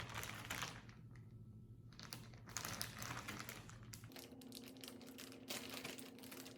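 Plastic bag of frozen chicken nuggets crinkling in bursts as it is handled and pulled at to open it, over a low steady hum that shifts in pitch about two-thirds of the way through.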